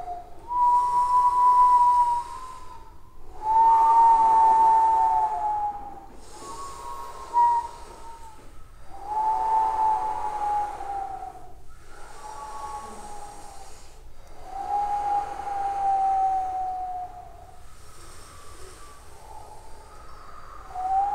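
Throat (overtone) singing: a run of breathy held notes, each about two seconds long with a whistle-like high overtone that slides slightly down, separated by short breaths.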